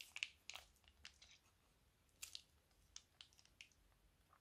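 Faint crinkles and squishes from a plastic piping bag being squeezed empty and twisted by hand, a few scattered small crackles.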